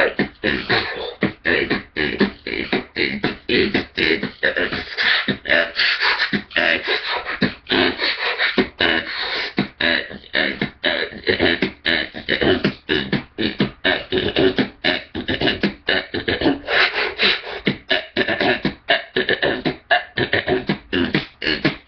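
Dubstep-style vocal beatboxing with a hand cupped at the mouth: a fast, unbroken string of choppy "wub wub" bass stutters and mouth clicks, about four a second.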